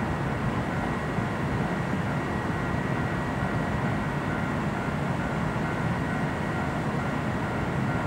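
Yoro Railway 600 series electric train (ex-Kintetsu 1650 series) running away from the platform, a steady low rumble of motors and wheels on the track.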